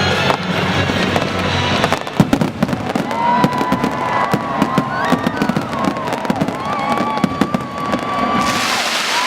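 Fireworks going off in a dense rapid run of bangs and crackles from about two seconds in, over music. Crowd cheering rises near the end.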